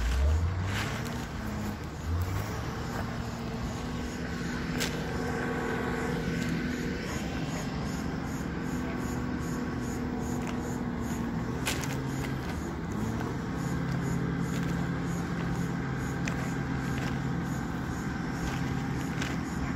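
Heavy machinery engine running steadily, its pitch rising briefly at the start, with a few sharp clicks over it.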